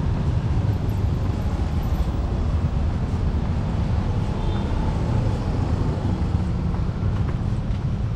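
Outdoor street ambience: a steady low rumble with no clear single event.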